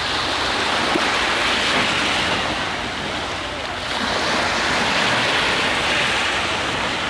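Small sea waves breaking and washing up the sand at the shoreline: a steady rushing surf that eases briefly near the middle and swells again.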